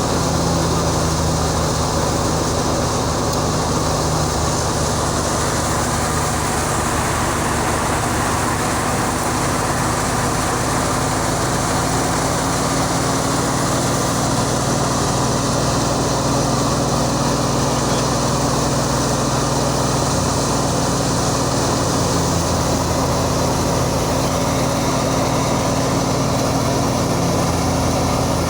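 Wheat harvesting machinery running steadily at a constant speed: an engine's even drone under the noise of the working machine, with no change in pace.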